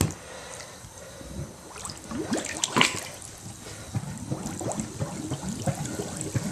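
Standing floodwater in a basement sloshing and gurgling, with many short bubbling chirps and a couple of brief splashes, one right at the start.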